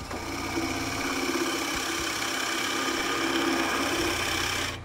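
Nova Voyager DVR drill press spindle starting on its own as the quill is lowered (self-start mode) and a Forstner bit boring a quarter-inch-deep hole into a softwood block, with a steady motor hum and whine. The sound cuts off near the end, when the quill is raised and the spindle stops.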